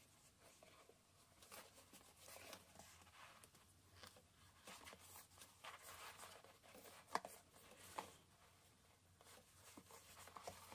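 Near silence with faint handling rustle as cork cord is pulled through a bolo tie adjuster, and two small clicks about seven and eight seconds in.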